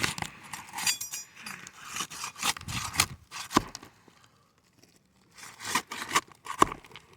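Brittle roof shingles scraping and cracking as they are pried up, in a run of short scrapes and snaps with a pause about four seconds in. The tearing is the sign that the shingles are too brittle to be repaired.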